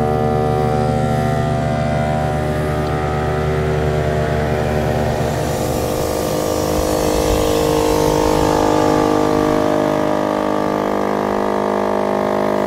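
Onboard air compressor running steadily as it pumps a tire back up through its hose: a constant mechanical hum with a low pulsing that fades about halfway through.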